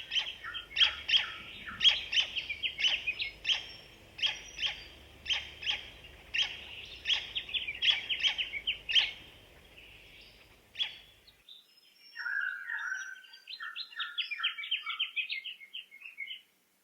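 Birds chirping in short, rapidly repeated calls. About 11 seconds in the background cuts out abruptly and a fainter, quicker run of chirps follows.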